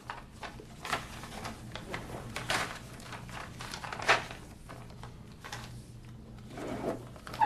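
Sheets of paper rustling and crinkling as they are handled and shuffled on a wooden desk: a string of short, crisp rustles, the sharpest about four seconds in.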